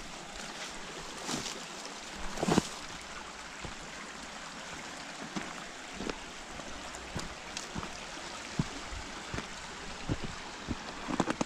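A mountain stream rushing steadily, with a few sharp clicks and thumps over it, the loudest about two and a half seconds in and a cluster near the end.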